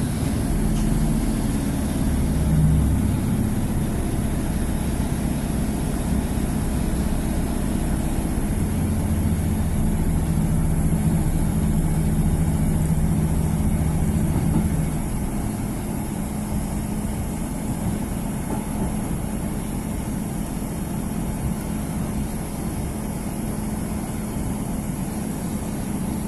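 Interior of a Class 150 Sprinter diesel multiple unit on the move: a steady drone from its underfloor diesel engine over the rumble of the running train. About fifteen seconds in, the engine note drops away and the sound gets somewhat quieter.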